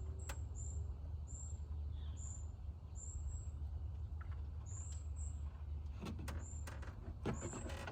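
A bird chirping, short high notes repeating about twice a second over a steady low rumble. A few sharp knocks come near the end.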